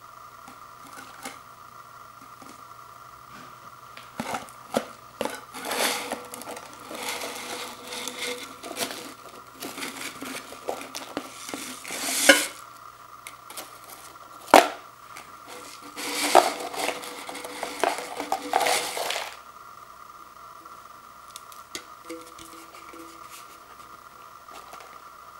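Stacked Pringles potato crisps sliding out of their cardboard can into a clear plastic bowl: crackly, rustling scrapes with many sharp clicks and two louder knocks against the plastic, starting a few seconds in and stopping about three quarters of the way through. A faint steady hum runs underneath.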